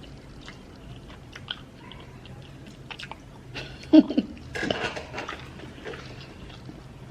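A person chewing and biting food close to the microphone, with small wet mouth clicks and smacks, while eating fish with amala. A brief voiced sound comes about four seconds in, followed by a noisier stretch of chewing.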